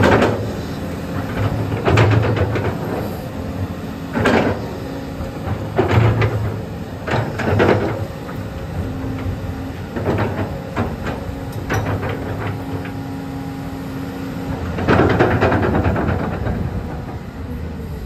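Used Volvo EC210 crawler excavator working its boom, arm and bucket. The diesel engine runs throughout and its note swells under load. Loud rushing hisses from the hydraulics come every couple of seconds, about eight in all, with a longer one near the end.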